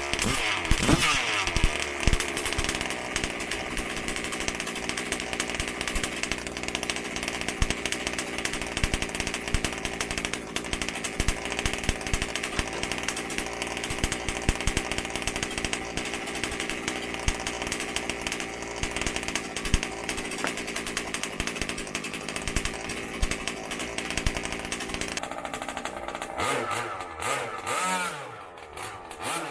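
Rovan BM5 1/5-scale RC monster truck's two-stroke gas engine running at a steady speed just after starting. Near the end its note changes, rising and falling.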